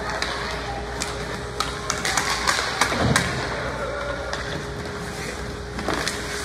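Sharp taps and knocks of play during a youth game, bunched in the middle, over steady background noise with a faint steady hum.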